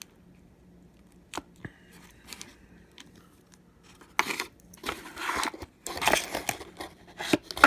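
Packaging being handled: a few small clicks at first, then from about halfway through repeated crinkling and rustling of the lock's packing material as the box contents are gone through.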